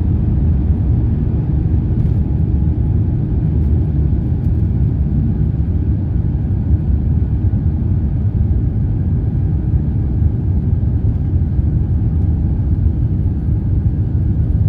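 Steady low rumble inside the cabin of an Airbus A350-900 climbing after takeoff: the Rolls-Royce Trent XWB engines and airflow over the fuselage, with no distinct events.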